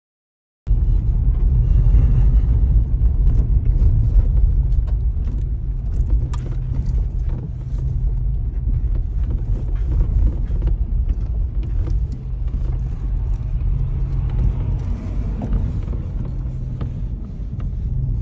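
Loud, steady low rumble that starts abruptly just under a second in, with a few faint clicks over it.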